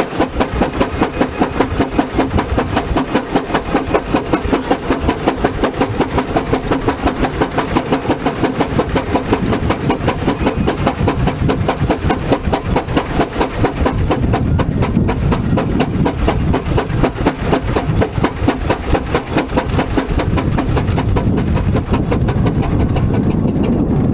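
Single-cylinder Fowler 14NHP steam ploughing engine working hard under load, its exhaust beating in a sharp, even rhythm of about four beats a second. In the second half the beats blur into a heavier, steadier rumble.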